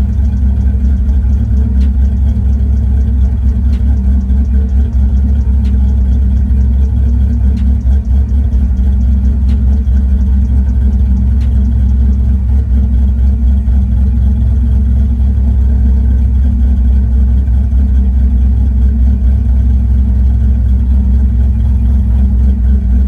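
Car engine idling steadily at about 1,000 rpm while it warms up.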